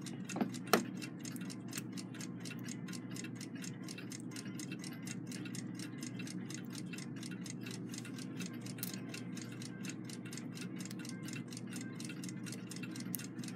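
A mechanical clock ticking fast and evenly, about five ticks a second, with a couple of light handling clicks in the first second.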